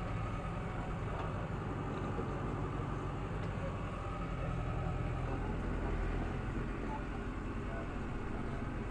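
Tractor engine running steadily under load while it pulls a grass tedder across a meadow. It is a low, even hum that swells slightly in the middle.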